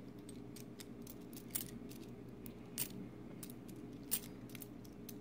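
Silver dimes clicking and chinking lightly against each other as they are handled, with a few louder clicks among them, over a steady low hum.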